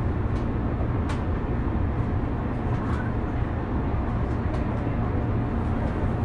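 Tokyo Metro 03 series chopper-controlled train running, heard from inside motor car MoHa 03-212. There is a steady low rumble of the running gear on the track with a faint steady tone above it, and a sharp click about a second in.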